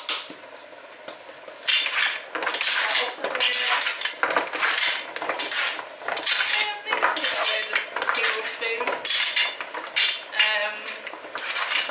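Chopped vegetables being tossed by hand in oil in a metal roasting tin. There is a single clink at the start, then from about two seconds in, a busy, irregular clatter of pieces knocking against the tin.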